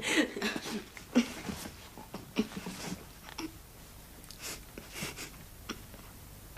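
Quiet eating sounds at a tea table: chewing and breathing with a scattering of light clinks and knocks of china and cutlery.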